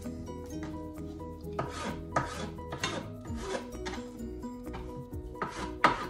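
Black ceramic knife slicing through a raw orange bell pepper onto a plastic cutting board, several irregular cutting strokes with some scraping, over background music.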